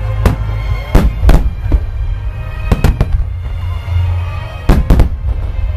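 Aerial firework shells bursting overhead in a rapid barrage: about eight sharp bangs, several coming in quick pairs, over a constant deep rumble.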